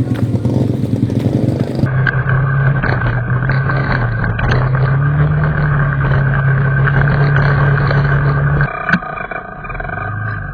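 Small motorcycle engine running at a steady pitch, stepping up slightly about halfway, with scattered rattles and knocks. The first couple of seconds are a rushing hiss, and the engine drops away near the end.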